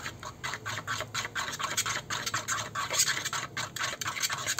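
A utensil scraping around a bowl as a thick cornmeal batter with margarine is stirred, in quick, repeated strokes several times a second.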